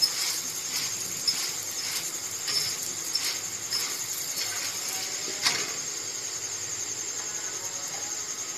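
Paratha frying in oil on a hot tawa: a steady high-pitched sizzle with scattered sharp pops and spatula taps, the loudest about five and a half seconds in.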